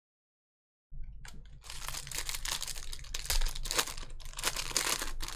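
Crinkling and tearing of a trading-card pack wrapper, with quick clicks of cards being handled, starting abruptly about a second in.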